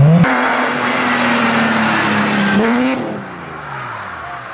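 Rally car engine held at high revs with a loud rushing noise over it while the car is off the road in bushes; the engine note climbs near the three-second mark. Then the sound drops to a quieter rally car engine.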